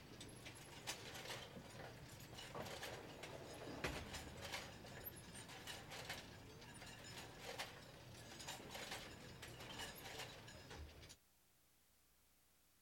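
Faint, irregular clicking and knocking over a low hum, which cuts off abruptly to dead silence about eleven seconds in.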